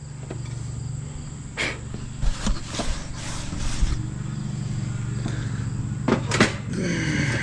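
An engine idling steadily in the background, with a few sharp knocks and clatters about two seconds in and again about six seconds in.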